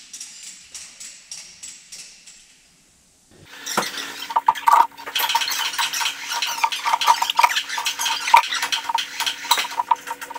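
Metal parts and tools clinking and clattering: soft, spaced clicks at first, then about three seconds in an abrupt change to loud, dense clatter over a steady hum.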